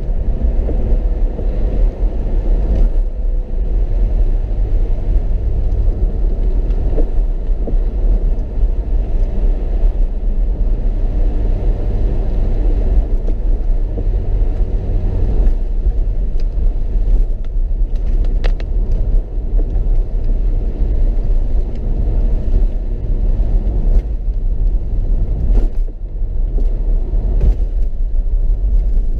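Mercedes-Benz SLK 55 AMG's V8 running at a steady cruise on a wet road, heard from inside the cabin as a steady low rumble of engine and tyres, with a few faint clicks.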